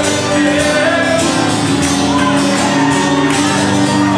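Live acoustic guitar strummed steadily under a long held sung note from a male singer.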